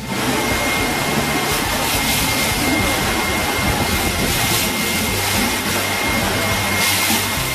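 Walk-behind floor grinder grinding the old epoxy coating off a concrete floor: a loud, steady rushing machine noise with a thin high whine running through it.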